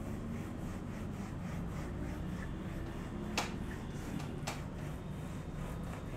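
Whiteboard eraser rubbing across a whiteboard as writing is wiped off, with two sharp clicks about a second apart midway through.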